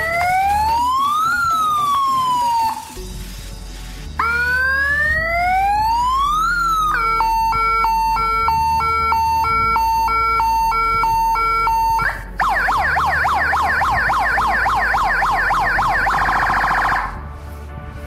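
4-in-1 electronic police siren for a bike or scooter sounding through its small horn speaker, stepping through its tones: a wail rising and falling, a second rising wail, a two-tone hi-lo, then a rapid warble that cuts off near the end.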